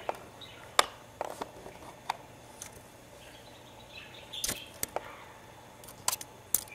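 About a dozen scattered sharp clicks and taps in uneven clusters, the loudest just under a second in, as a kitten plays and scrambles right against the camera.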